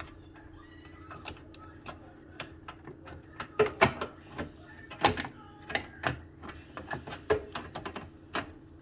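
Irregular plastic clicks, clacks and knocks as a GE microwave's door-switch holder is pulled up and pushed back to free it from its hooks. They come thickest and loudest about three to five seconds in.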